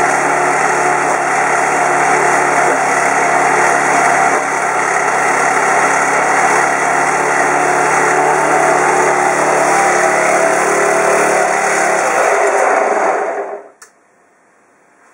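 Honda GX31 four-stroke gasoline engine of a 1:6 scale RC M5 Stuart tank running steadily, then shut off about thirteen seconds in, dying away within a second. A single click follows just after.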